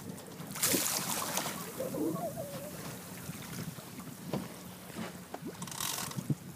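Wind buffeting the microphone aboard a fishing boat at sea, over a faint steady low hum, with two louder rushing gusts, one about half a second in and one near the end.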